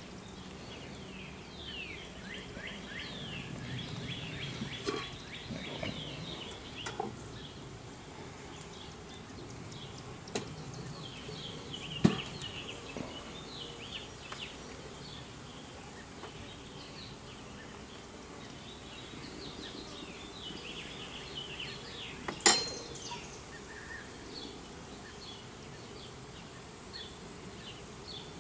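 Honeybees humming around an open hive, with small birds chirping steadily in the background. Two sharp knocks stand out, one a little under halfway through and one about four-fifths through.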